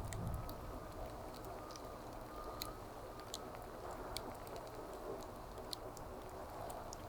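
Wood fire crackling: irregular small sharp pops, about one or two a second, over a soft steady hiss of burning.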